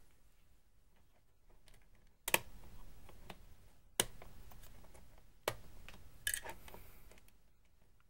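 Working LEGO pistol mechanism being operated, giving sharp plastic clicks and snaps. There are four in all: two loud single clicks about a second and a half apart, then two closer together, each followed by a brief rattle.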